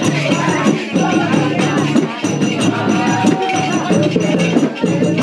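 Music for a Gurung kauda dance: singing over rattling percussion that keeps a steady, even beat.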